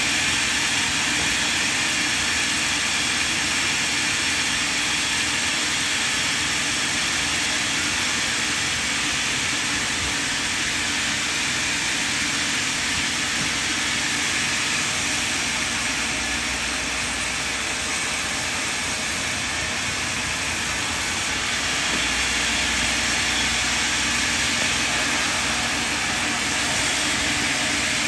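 Large band sawmill running, its blade cutting lengthwise through a log on the carriage: a steady, unbroken mechanical noise with a strong hiss.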